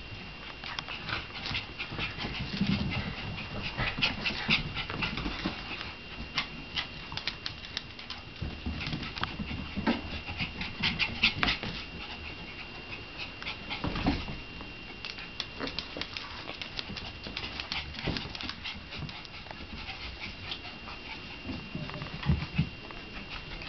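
Shiba Inu puppies playing: many quick clicks and skitters of small claws on a hardwood floor and rug, with a few short puppy noises.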